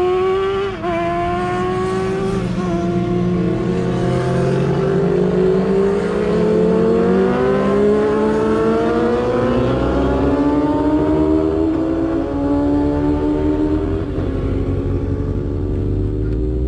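Kawasaki ZX-6R inline-four sport bike engine at full throttle on track, its pitch climbing with two short drops at upshifts about one and three seconds in. It then rises for a long stretch before falling away and settling near the end.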